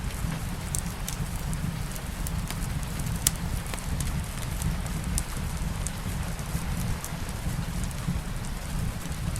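Wood fire crackling in a fireplace, with scattered sharp pops and one louder pop about three seconds in, over the steady patter of light rain and a low rumble.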